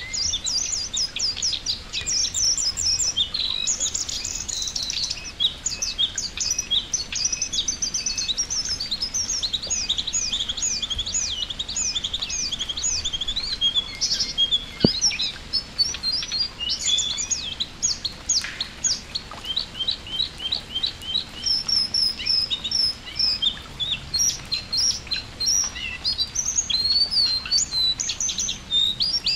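Jongkangan birds chattering in a continuous stream of quick, high chirps and trills, over light rain dripping onto water.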